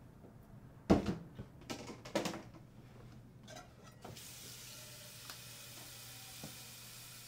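A sharp knock about a second in, then a few clattering knocks, then a steady hiss that starts about four seconds in and keeps going.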